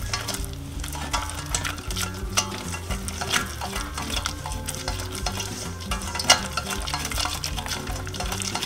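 A wire whisk beating flour into melted butter in a stainless steel saucepan to make a roux. The wires scrape and click against the pan in quick, irregular strokes.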